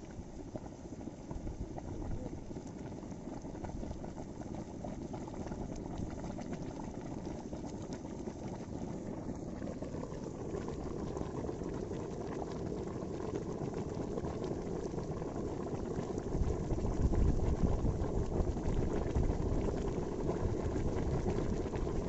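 Lumps of white powder slaking in water in a metal basin, bubbling and fizzing steadily like a boil, getting louder about two-thirds of the way through.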